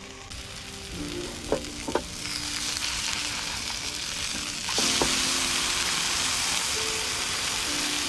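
Burger patty sizzling in a nonstick frying pan on a portable camp stove, with a few sharp taps of the spatula on the pan. The sizzle builds about two seconds in and jumps louder about five seconds in, as the patty is flipped onto its raw side.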